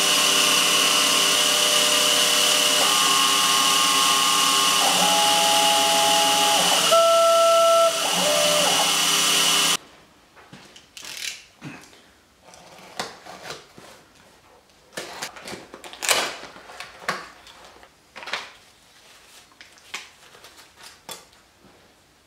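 Milling machine running as an end mill cuts a pocket in a pine block: a steady whine with several tones that step up and down. It cuts off suddenly about ten seconds in, followed by short, scattered scrapes and crackles of a utility knife slitting the packing tape on a parcel.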